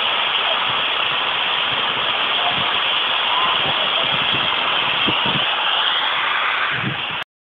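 Steady hiss of escaping steam from a standing saddle-tank steam locomotive, Rosyth No.1, at rest at a platform. The hiss cuts off abruptly near the end.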